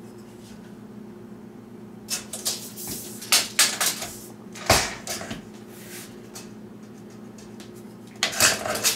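Tape measure and hands working on a laminate countertop: scattered light clicks and knocks, with one heavier knock about halfway and a quick cluster of clicks near the end, over a steady low hum.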